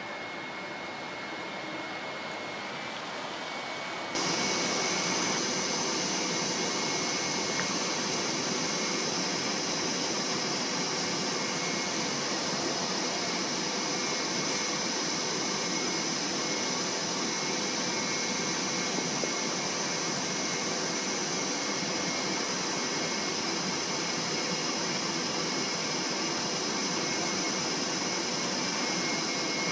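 A DB class 425 electric multiple unit standing at the platform with its ventilation fans and power converters running: a steady whirring hiss with a constant high whine and lower hum. For the first four seconds there is only a quieter, more distant train noise before the sound cuts to this louder one.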